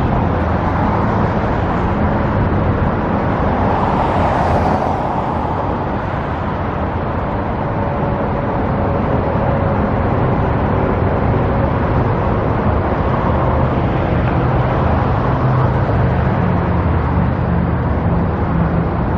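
Steady road traffic and engine rumble, with a low hum, swelling briefly with a hiss about four seconds in.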